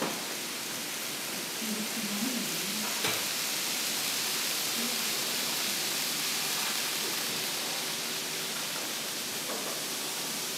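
Steady hiss with faint voices in the background and a single sharp click about three seconds in.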